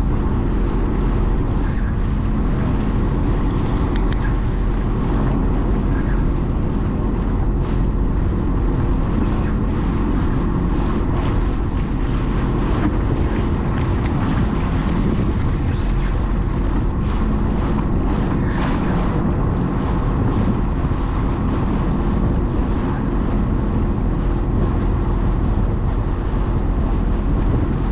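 Sea-Doo personal watercraft engine running steadily at low speed, with water splashing around the hull and wind on the microphone.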